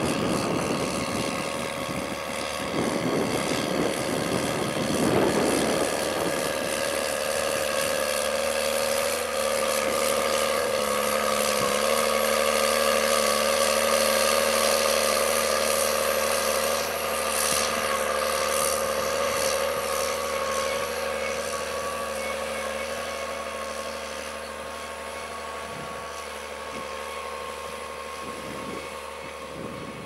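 Case IH Puma 165 CVT tractor's six-cylinder diesel engine working steadily under load as it pulls a five-furrow mouldboard plough through the soil, with a steady whine over the engine note. It is loudest as the tractor passes and fades as it pulls away in the last third.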